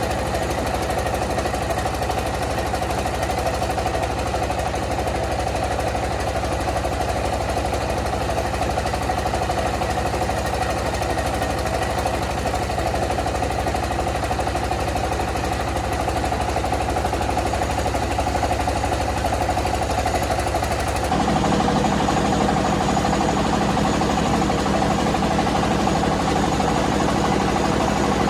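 Rice milling machine running with a steady, loud mechanical din and a fast even rattle. About two-thirds of the way through the sound changes abruptly to a fuller, deeper drone.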